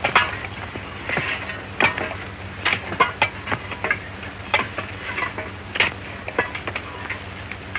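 A string of short, irregular knocks and scuffs, a few each second, over the steady low hum of an old film soundtrack.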